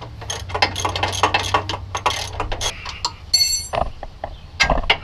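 Hand wrench working a nut at a Jeep Wrangler JK's lower shock mount: a quick run of metallic clicks, then a short ringing clink about three seconds in and two heavier knocks near the end.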